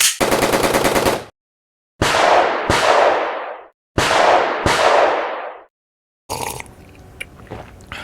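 Gunfire sound effect: a rapid burst of shots lasting about a second, then two pairs of single shots, each shot trailing off in a long fading echo. Quieter clattering follows near the end.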